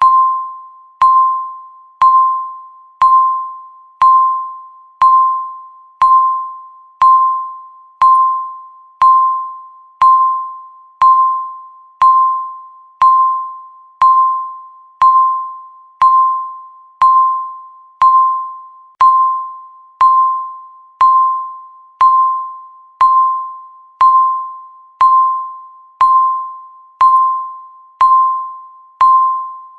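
Countdown timer beeping once a second: a clear single-pitched electronic beep that starts sharply and fades away before the next one.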